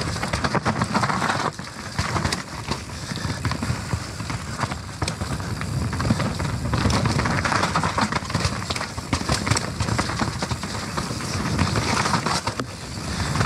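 Nukeproof Mega Comp full-suspension mountain bike descending a wet trail: tyres rolling and skidding over mud and rock, with the chain and frame clattering in many short sharp knocks over rough ground.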